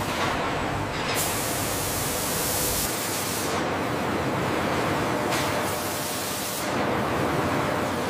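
Spray nozzles over a steel rail hissing loudly. The hiss swells and thins in surges every couple of seconds, with a low rumble under it that drops away about three seconds in.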